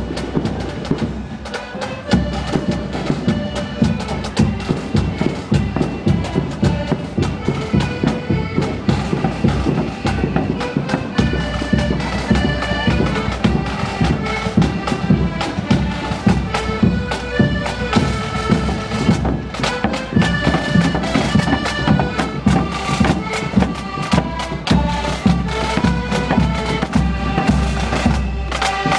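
Marching accordion band playing a tune: many piano accordions sounding the melody in held, reedy notes, with a bass drum and side drums beating time.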